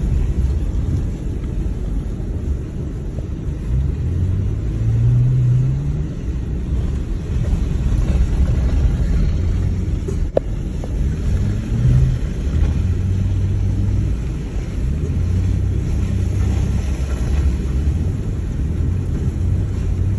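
Jeep Grand Cherokee WJ driving a rough gravel trail: the engine runs under the rumble of tyres and suspension, its note rising and falling a couple of times. There is one sharp knock about ten seconds in.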